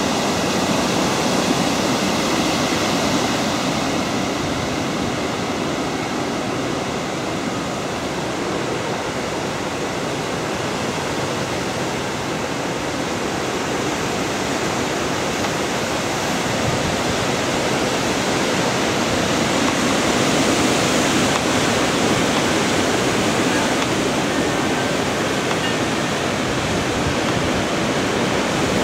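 Storm wind from Hurricane Irene rushing through birch and pine trees: a steady, dense rush that eases slightly and then swells again about twenty seconds in.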